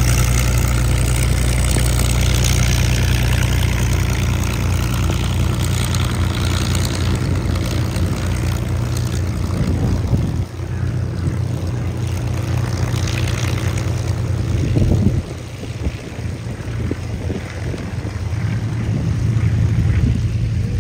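Propeller aircraft engine running, a steady low drone, with sudden drops in level about ten and fifteen seconds in.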